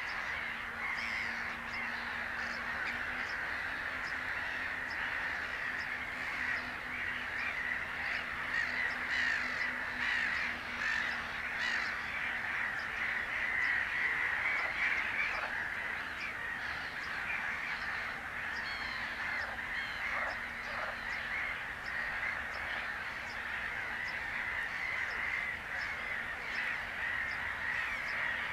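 Dense chorus of many birds calling at once, short overlapping calls running on without a break. A faint steady low hum sits underneath for about the first twelve seconds.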